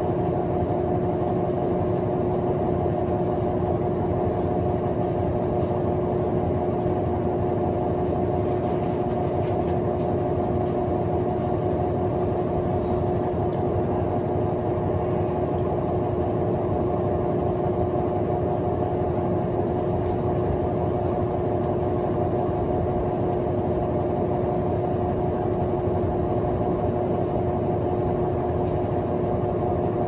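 Colormaq LCA12 11.5 kg top-loading washing machine spinning its basket: a steady motor and drum hum with constant tones held throughout.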